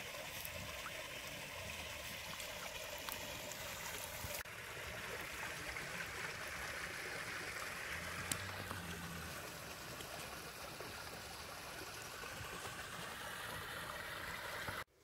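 Water streaming and trickling off a folding mesh fish trap as it is lifted out of the water and carried onto the bank, with a soft knock of handling about eight seconds in. The sound cuts off abruptly just before the end.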